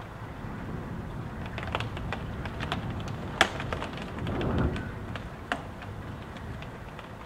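Gusting wind rumbling steadily as heard from inside a house, swelling in a gust about four and a half seconds in. Irregular sharp taps of rain and drips hit the house throughout, the loudest about three and a half seconds in.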